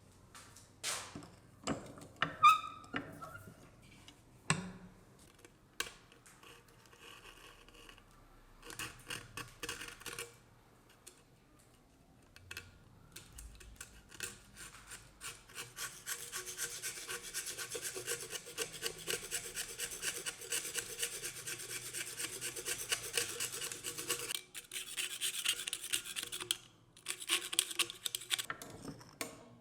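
Hand scraping and rubbing on the rusty steel of an old cleaver, taking off corrosion. A few knocks and clatter from handling come first; then a long run of rapid scraping strokes starts about halfway in and stops just before the end, with a short break in between.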